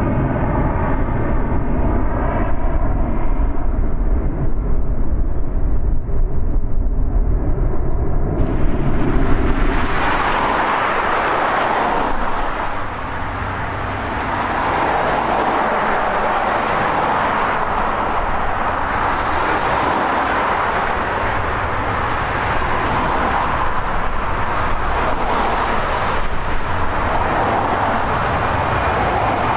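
A twin-engine jet airliner climbing away after take-off: a deep engine rumble with a steady hum of several tones. About eight seconds in it cuts abruptly to road traffic, cars passing close by with tyre noise that swells as each one goes past.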